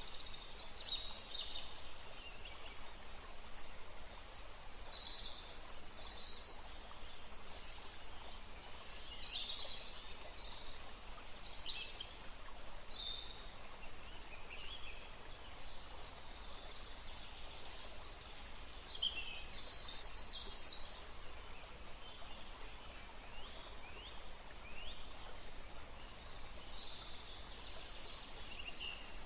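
Wild birds chirping: many short high calls and quick down-sweeping notes, scattered irregularly, over a steady background hiss.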